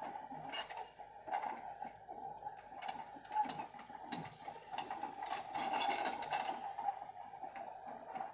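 An engine running steadily under rapid metallic clattering and clinking, which grows louder about five to six and a half seconds in.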